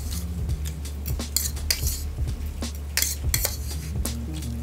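Metal fork clinking and scraping against a bowl of noodles while eating, in irregular short clicks, over a steady low hum.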